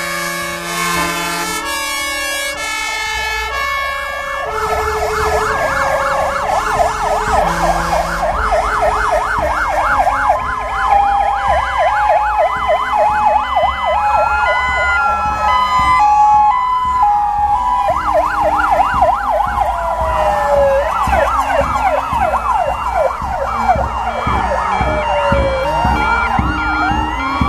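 Several fire engine sirens sounding at once as a convoy of fire trucks drives past, over the rumble of truck engines. A stepped two-tone horn comes first, then fast yelping warbles and slow rising-and-falling wails overlap for the rest.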